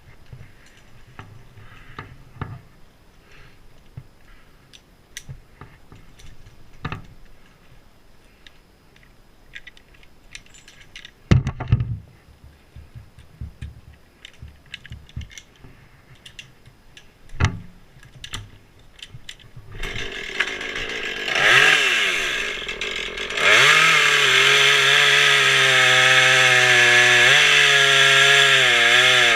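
Scattered knocks and two heavy thuds, then about twenty seconds in a chainsaw engine starts, revs up and down, and settles into running steadily at high speed.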